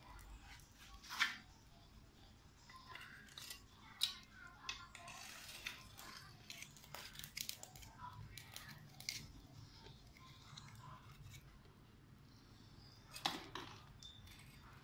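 Metal tongs clicking and scraping against a wire grill rack as whole fish are turned over a charcoal fire: scattered sharp clicks, the loudest about a second in, at four seconds and near the end.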